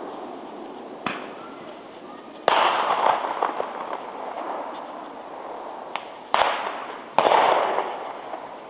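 Fireworks going off: five sharp bangs, two small ones and three loud ones, the loud ones bunched in the second half. Each bang trails off over about a second of echo.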